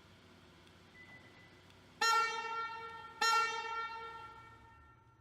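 Two ringing chime strikes on the same note, about a second apart, each sounding suddenly and fading slowly.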